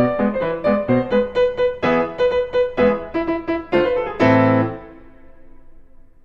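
Background piano music: a light line of quick repeated notes that ends about four seconds in on a final chord, which rings and fades away.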